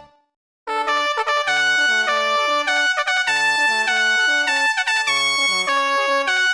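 Panasonic KX-TG6611 cordless phone ringtone rendered by the Beatnik Player MIDI synthesizer: one tune dies away at the start, and after a brief silence a new synthesized ringtone melody with a bass line starts about half a second in.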